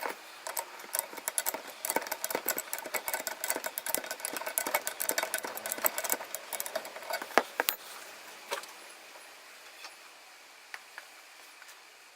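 Rapid clicking of hand tools turning nuts on a threaded rod, used to spread the swing arm mounting arms. The clicking dies away about eight seconds in, leaving a few isolated clicks.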